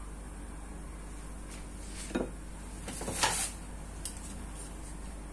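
A spatula knocking against the side of a cooking pot of potatoes being stirred. There is a sharp knock about two seconds in and a louder clatter about a second later.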